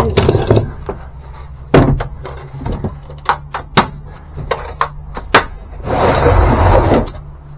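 Hard plastic Ridgid press-tool cases being handled: a lid shut, latches clicking and the cases knocking as they are set down, in a string of sharp clicks and knocks. About six seconds in comes a rough scrape of about a second as a case slides across the floor, over a steady low hum.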